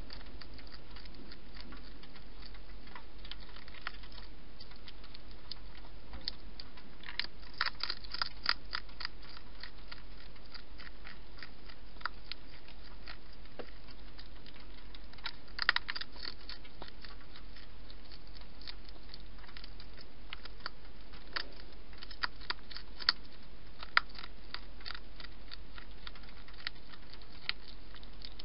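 A wild hedgehog chewing its food: irregular sharp clicks coming in short clusters, over a steady low hum.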